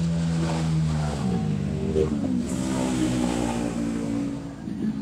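Motor vehicle engine running nearby. Its pitch shifts about a second in and then runs higher, as if the vehicle is speeding up.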